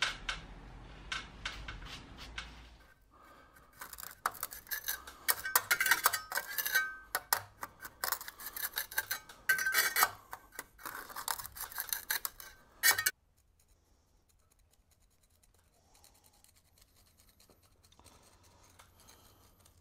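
Trowel scraping and pressing dry sand-and-cement mortar into the gap between a concrete lintel and the brickwork above: gritty scraping with many sharp clicks. It cuts off abruptly about two-thirds of the way through, leaving only faint scratching.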